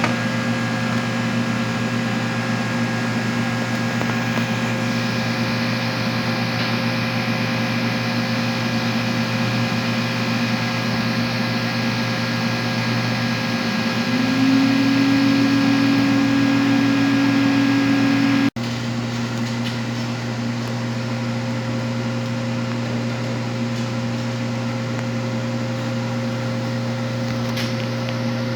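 Steady electrical hum and machine drone from high-vacuum coating equipment, with a low buzz under a few steady tones. About two-thirds of the way through, a louder, slightly higher hum comes in for about four seconds and cuts off abruptly.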